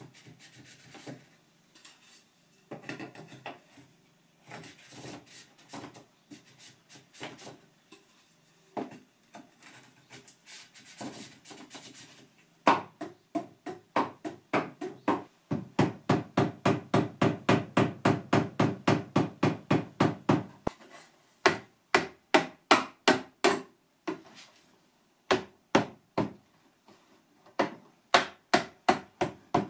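Hammer tapping on wood. It begins with some quieter knocking and handling. About halfway through it turns into long runs of quick, even blows, about four a second, at the plywood pipe rack.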